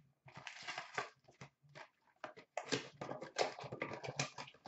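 Paper and cardboard rustling as a hockey card box is opened and its card packs are taken out and set down. A rustle comes early, then a busy run of short crinkles and taps from about halfway through.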